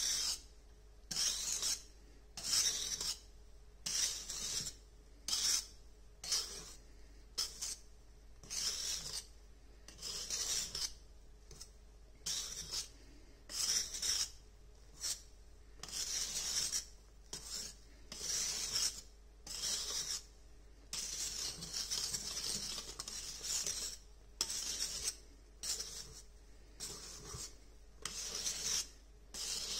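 Wire balloon whisk scraping around a stainless steel bowl as it mixes flour and cocoa powder into chocolate cake batter, in steady strokes about once a second that run together into continuous scraping for a few seconds past the middle.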